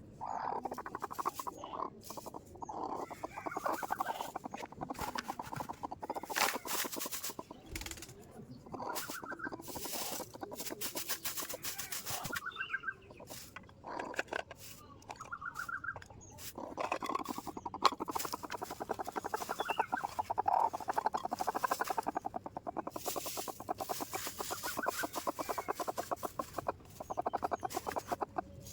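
Domestic chickens clucking in repeated runs of calls.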